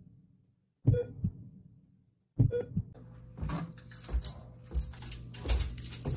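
Two heavy thumps, each with a short ringing tail, about a second and a half apart. Then footsteps come down wooden basement stairs, with clattering, light jingling and a steady low hum.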